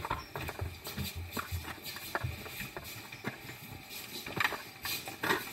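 Footsteps of people walking indoors: a run of uneven soft thumps and clicks, with a couple of sharper knocks near the end.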